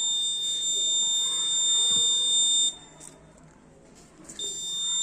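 Arduino anti-theft alarm buzzer sounding a steady high-pitched tone, set off by the door sensor opening. It cuts off a little under three seconds in and starts again about a second and a half later.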